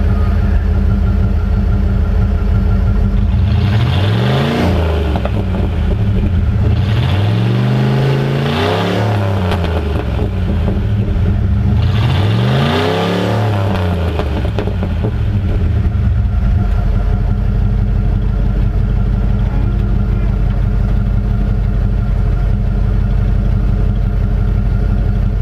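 Ford 302 (5.0 L) V8 exhaust running through an open QTP electric exhaust cutout that dumps under the cab. The engine idles, is revved three times in the first half, then settles back to a steady idle.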